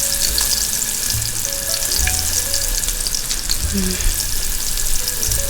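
Vegetables sizzling in a frying pan, a steady high-pitched sizzle with scattered crackles and pops.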